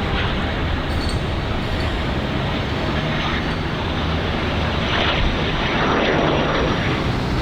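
Jet airliner engines running, a steady loud rush of noise with a low rumble beneath, swelling slightly near the end.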